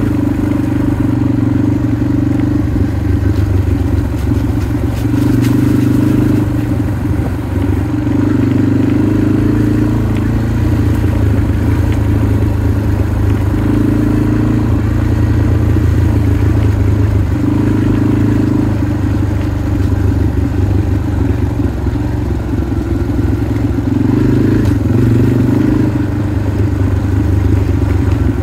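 Motorcycle engine running as it is ridden along a dirt trail, the throttle opening up and easing off every few seconds.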